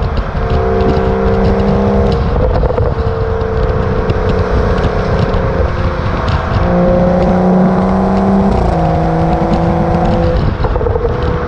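BMW F30 335i's turbocharged inline-six through a modified axle-back exhaust, the car driving toward the camera under power, its note jumping abruptly in pitch a few times. Light crackles are scattered through it.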